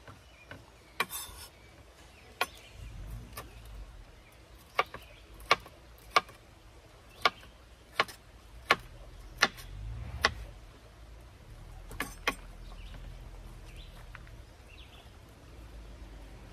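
Chef's knife chopping a red bell pepper on a wooden cutting board: a run of sharp knocks, about one every three-quarters of a second through the middle, ending with a quick double knock about twelve seconds in.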